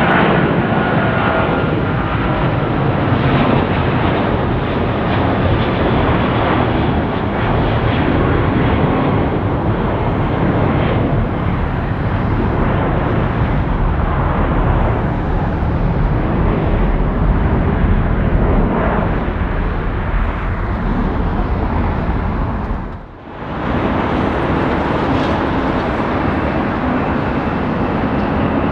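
Jet engines of a departing Boeing 777-200ER giving a loud, steady roar. About 23 s in the sound drops out for a moment, and the loud roar of a departing Boeing 747-400 freighter's jet engines follows.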